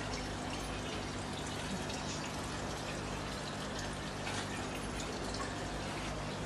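Steady water trickle and bubbling of aquarium filters and air pumps, over a steady electrical hum.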